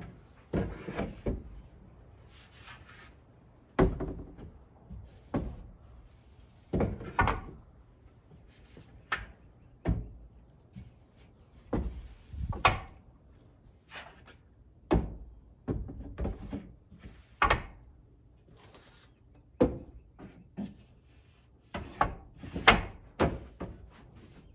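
Wooden slats knocking and clattering as 3/4-inch boards are set one by one onto a wooden frame, a string of irregular thunks every second or two, loudest near the end.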